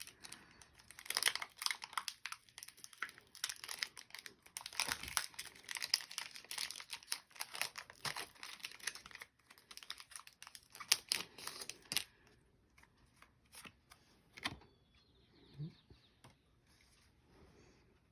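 Foil Pokémon booster-pack wrapper being crinkled and torn open, a dense crackle for about twelve seconds. After that come a few scattered light clicks and rustles.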